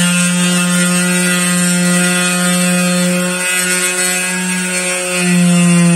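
Homemade 12-volt drill built on a DC 775 motor, running steadily with a loud, even motor whine that holds its pitch.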